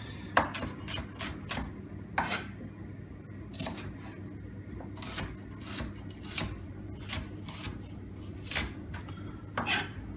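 Chef's knife chopping shallots on a wooden cutting board: sharp, separate knocks of the blade on the board at an uneven pace, about one a second, some in quick pairs.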